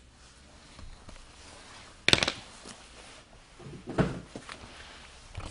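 Handling noise from cardboard boxes of hockey cards being moved on a table: a sharp knock about two seconds in and a duller knock about four seconds in, with faint rustling between.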